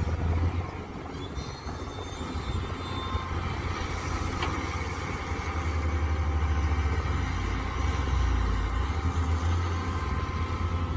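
Mini excavator's engine running steadily under work, its low rumble swelling and easing a little as it goes.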